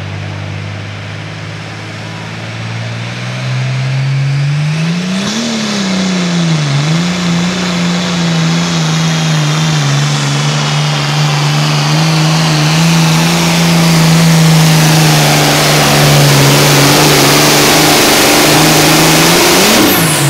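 Pulling tractor's engine revving up and held at full throttle through a pull, with a high whine building over it; about three seconds in the revs climb, dip once, then hold steady, and just before the end the engine backs off sharply.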